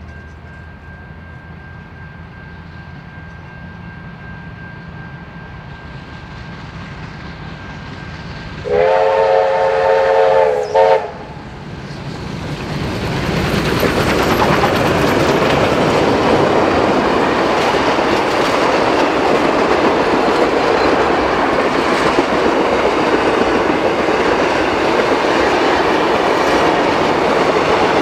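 A steam train approaches with a slowly building rumble, then sounds its whistle about nine seconds in: a chord of several steady tones held for about two seconds with a brief break. It then passes close by at speed, a loud steady rush of wheels and carriages on the rails.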